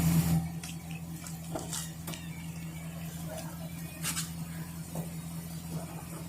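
Steady low hum of a tow vehicle's engine idling, with scattered small clicks and rustles and one brief louder rustle about four seconds in.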